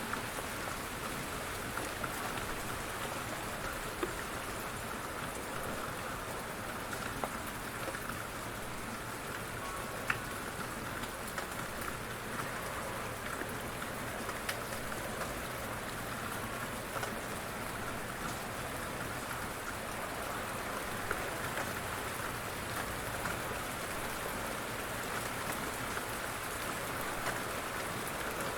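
Light rain falling steadily on a surface, a constant patter with scattered sharper drop ticks.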